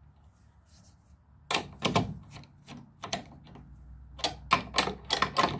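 Hand tool clicking and tapping against the metal studs and nuts of a terminal strip, an irregular run of sharp clicks starting about a second and a half in.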